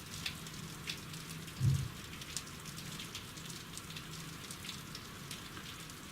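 Soldering iron crackling and sizzling on wires dipped in acid soldering flux: a steady hiss with irregular small pops, and a low thump about 1.7 s in.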